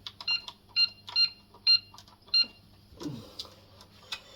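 Intruder alarm keypad beeping as a code is keyed in to put the system into engineer's mode: five short, high beeps, one per key press, with faint clicks between them.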